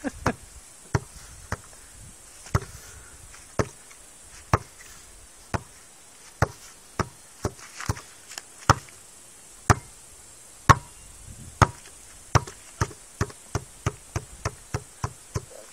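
A basketball bouncing again and again on a hard surface: sharp single knocks, about one a second at first, quickening to two or three a second near the end.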